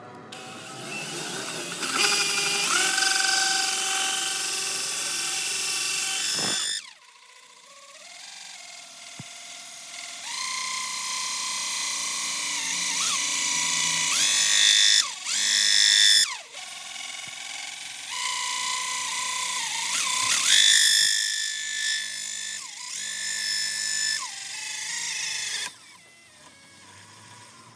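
Electric drill spinning a hole saw and cutting into wood, in three long runs with pauses between; the motor whine dips in pitch now and then as the saw bites.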